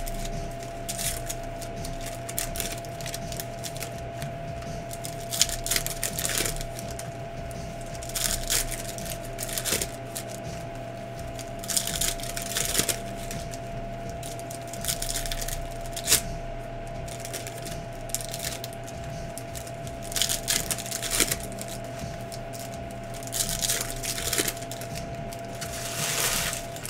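Foil trading-card pack wrappers crinkling and tearing as packs are opened by hand, in short irregular bursts every second or two, over a steady low hum and a faint steady tone.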